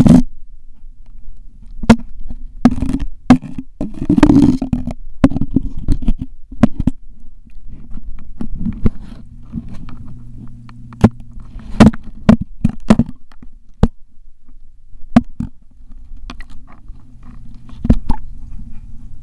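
Muffled knocks and scrapes of a camera's waterproof housing being moved and handled under water, irregular and in clusters, over a steady low hum.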